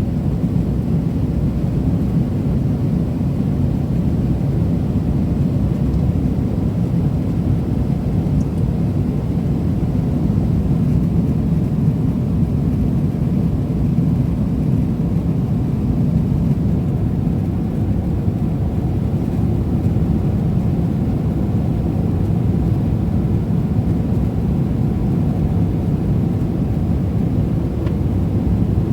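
Steady low rumble inside the cabin of a Boeing 777-300ER airliner, with engine and airflow noise holding an even level throughout.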